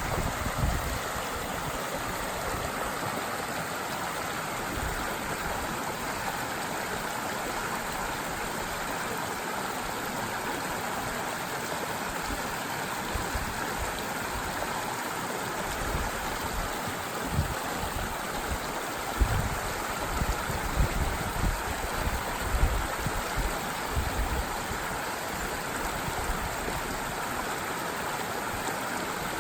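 Steady rushing and babbling of a forest stream, with scattered brief low rumbles, most of them in the second half.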